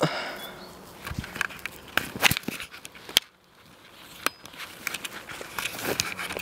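Footsteps through overgrown undergrowth, with twigs and dry vegetation cracking and crackling underfoot in irregular sharp snaps, the loudest about two and three seconds in.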